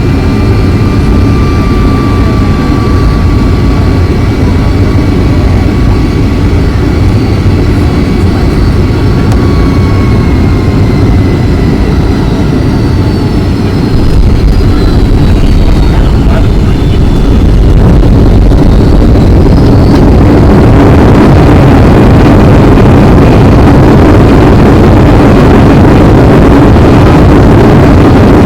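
Cabin noise of a Boeing 757 landing: a steady jet engine rumble with a high whine that slowly falls in pitch, then about halfway through the noise gets louder and grows into a broad roar, the engines' reverse thrust after touchdown.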